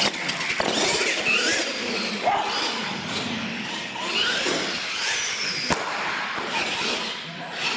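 Several RC monster trucks' electric motors whining, the pitch rising and falling as the throttle changes, with a sharp knock of a truck hitting the floor about three-quarters of the way in.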